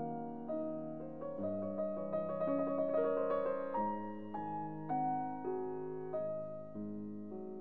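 Background piano music: a slow melody of held notes, with a quicker run of short repeated notes in the middle.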